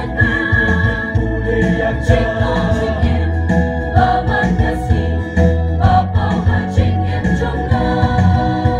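Mixed choir of women's and men's voices singing together in parts through microphones, holding long sustained notes.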